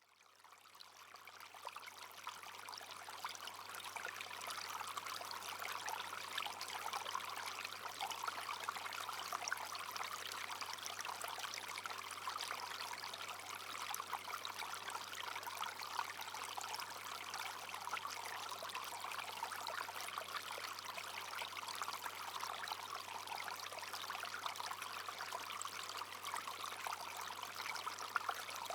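Brook flowing steadily, its water babbling and trickling. It fades in over the first couple of seconds, then holds an even level.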